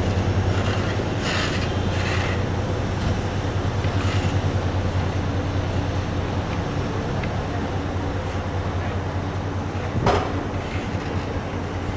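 A train at the station, giving a steady low drone, with one sharp clank about ten seconds in.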